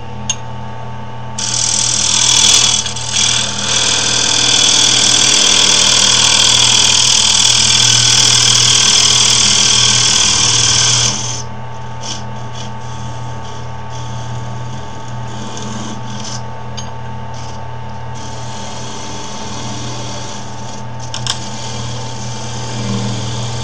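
Wood lathe motor running with a steady hum while a turning tool cuts a recess into the spinning wood: a loud scraping hiss from about two seconds in to about eleven seconds, then lighter cuts again near the end.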